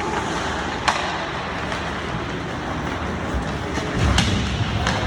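Ice hockey play: a steady scrape and hiss of skates on ice, with a sharp clack of stick or puck about a second in and a few more knocks near the end.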